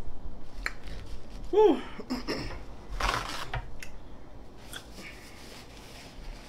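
Eating sounds of crunchy chips with scattered crisp clicks, and a short voiced sound rising and falling in pitch about a second and a half in. Around three seconds in, a sheet of paper towel is torn off the roll with a papery crackle.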